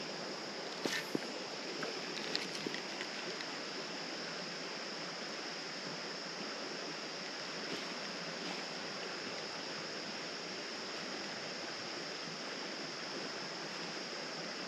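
Creek water flowing steadily over a shallow riffle, an even rushing hiss. A few light clicks stand out about a second in and again around two and a half seconds.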